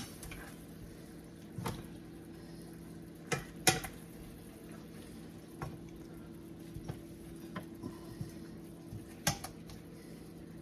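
Lemon-butter pan sauce simmering in a frying pan while metal tongs lay chicken cutlets back into it, with scattered sharp clicks of the tongs against the pan, the loudest a pair about three and a half seconds in and one near the end. A steady low hum runs underneath.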